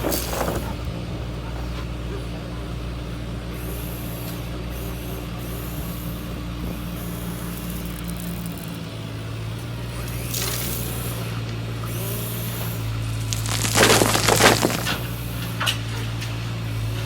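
Steady hum of a heavy RC construction model's electric hydraulic pump running, with two louder crunching, scraping bursts about ten and fourteen seconds in.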